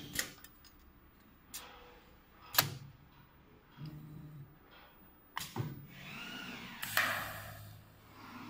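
Automatic blower-wheel welding machine: several sharp metallic clacks as the workpiece is set and clamped, then about seven seconds in the welding arc strikes with a loud burst of hiss that settles into a steady low hum.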